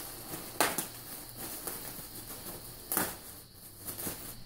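Packaging rustling and crinkling as fursuit parts are lifted out of a box, with two sharper, louder rustles about half a second in and again about three seconds in.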